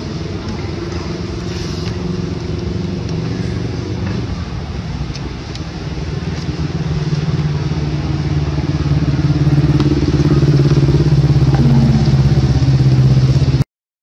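An engine running steadily with a low, even hum, growing louder over the second half, then cutting off abruptly near the end.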